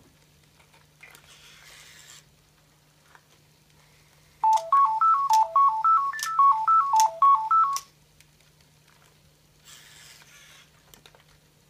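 Sony AIBO ERS-210 robot dog playing a quick electronic tune of short beeping notes that hop up and down in pitch, lasting about three seconds in the middle. Faint whirring of its leg servos comes before and after the tune.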